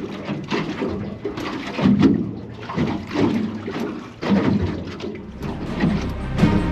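Water sloshing and lapping irregularly against the hull of a small fishing boat, with music starting to come in about five seconds in.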